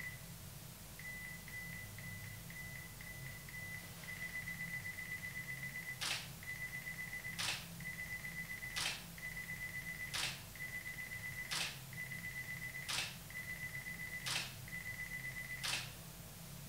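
Nikon DSLR on self-timer: a single beep, then quick high beeps for about three seconds that turn into a steady beep, broken eight times by the shutter firing about every 1.4 seconds as it takes a series of shots.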